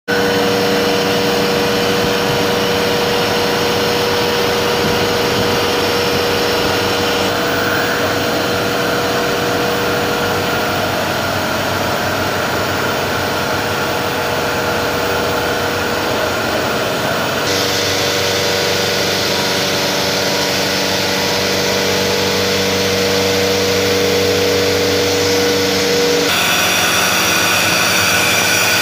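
CNC vertical milling machine running, its end mill cutting a spiral pocket into a metal mould block, a steady machining whine with a held tone beneath. The sound changes abruptly about seven, seventeen and twenty-six seconds in.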